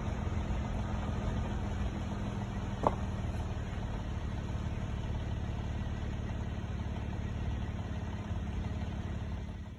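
Vehicle engine idling steadily, with a single brief click about three seconds in.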